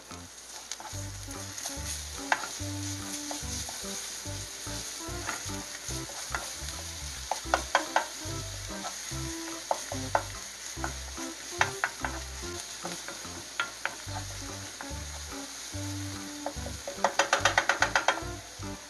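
Chopped garlic, green onion and onion sizzling in oil in a nonstick frying pan, stirred with a wooden spoon that taps and scrapes against the pan. Near the end comes a quick run of about ten spoon taps.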